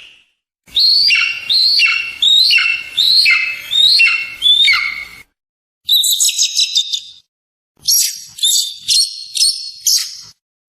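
Eagle calls in three separate bursts with short silences between. First comes a run of about seven high calls, each sweeping downward. Then a quick, chittering run of short notes, and last a string of about six short, high piping notes.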